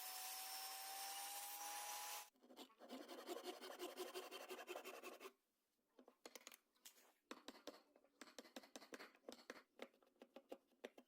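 Woodworking tools on wood. A small power tool runs with a steady whine for about two seconds and cuts off. A few seconds of dense rasping follow, then irregular scratching and light clicks.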